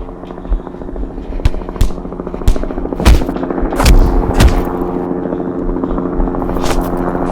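Punch sound effects: sharp hits at irregular intervals, the loudest cluster about three to four and a half seconds in, laid over a music track with a sustained droning chord.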